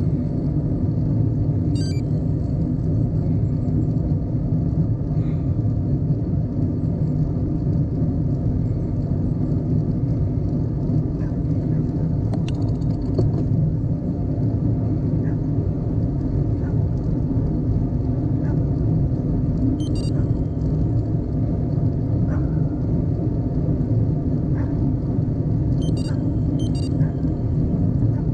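Steady low rumble of wind and road noise on the microphone while riding a bicycle, with a few brief high ticks scattered through.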